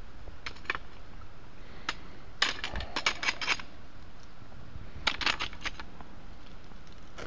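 Footsteps on stony ground: clusters of short, sharp clicks and scuffs against rock, busiest about two and a half to three and a half seconds in and again around five seconds in.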